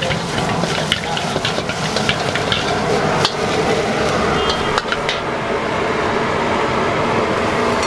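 Metal spatula scraping and clanking against a wok as fried rice is tossed and stir-fried, with sizzling over a steady roar from the gas wok burner. The rapid clanking thins out after about five seconds, leaving mostly the sizzle and burner.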